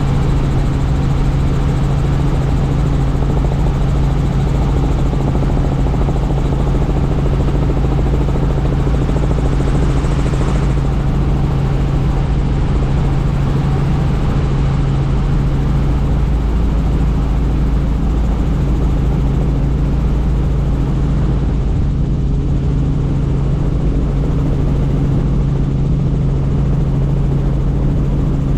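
Helicopter in flight: a steady drone of rotor and engine with a constant low hum, unchanging throughout.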